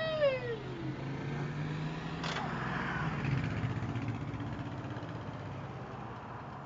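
A car passing by: a low engine hum that swells over the first three seconds or so and then fades away. A short falling whine comes at the very start, and a single click a little after two seconds in.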